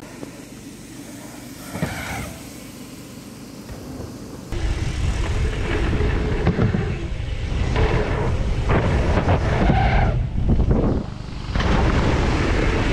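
Mountain bike run-in filmed on a helmet or chest camera: wind buffeting the microphone and tyres rolling over dirt, starting suddenly about four and a half seconds in, with a short lull near the end.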